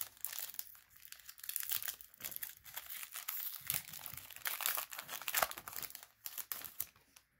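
Foil wrapper of a Pokémon booster pack crinkling and tearing as it is pulled open by hand: a dense, irregular run of crackles that dies away just before the end.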